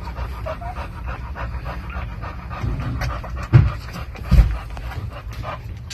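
A nursing pit bull mother panting steadily. Two low thumps come a little past halfway.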